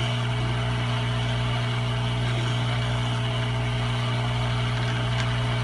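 Hot air rework station blowing steadily: an even rush of air over a constant low hum.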